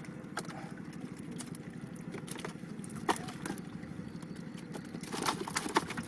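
Scattered sharp clicks and slaps of small fish flapping in a plastic crate as they are picked out of a net, thickening into a quick cluster near the end, over a low steady hum.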